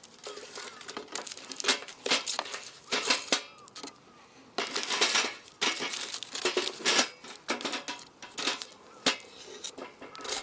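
Irregular rustling and crinkling with small sharp clicks and knocks, like things being handled close to the microphone.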